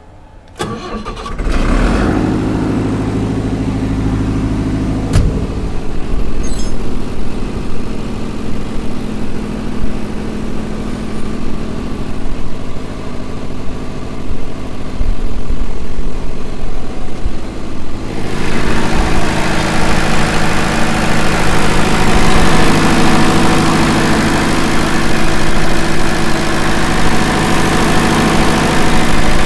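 Kirloskar 82.5 kVA silent diesel generator set starting at the turn of its panel switch, catching about a second in, then running steadily. About two-thirds of the way through it becomes louder and harsher.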